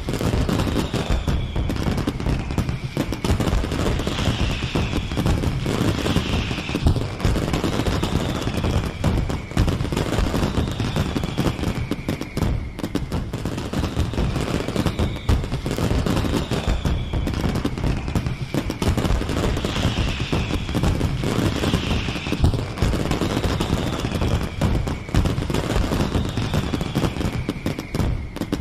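A fireworks display: a dense, unbroken barrage of bangs, pops and crackles. A high falling tone recurs about every two seconds above it.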